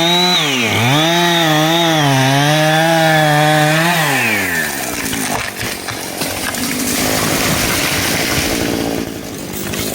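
Two-stroke chainsaw running at high revs, dipping briefly in pitch near the start, then winding down about four seconds in. A rougher, noisier sound without a clear engine note follows.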